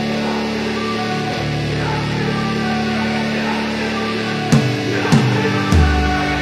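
Background rock music: sustained electric-guitar chords over a bass line, with a heavier drum beat coming in about four and a half seconds in.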